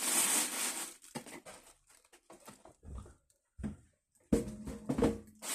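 Packing material rustling for about a second, then scattered knocks and taps as a boxed set of glasses is handled and unwrapped, the loudest knock a little after four seconds in.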